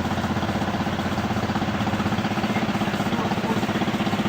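Engine idling steadily, with a fast, even pulse.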